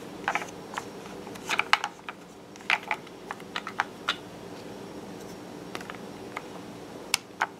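Hard plastic toy train handled in the hand: scattered sharp clicks and taps of plastic, some in quick pairs, over a faint steady hum.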